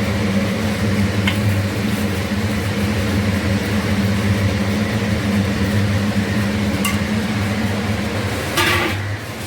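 Steady low mechanical hum, with two light clicks and a short clatter near the end.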